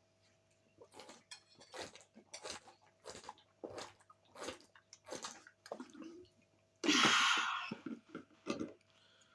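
A person gulping juice fast, about eight swallows in quick succession roughly every 0.7 s. A loud breathy gasp follows about seven seconds in, as the drinking stops.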